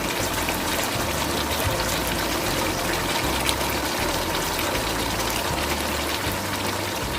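Thick tomato-based stew sauce simmering in a pan: a steady bubbling with many small pops, the heat just turned down after adding bell pepper.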